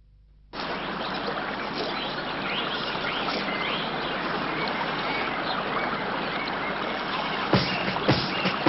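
Steady rush of running water with faint bird chirps over it. Drum beats of music start near the end.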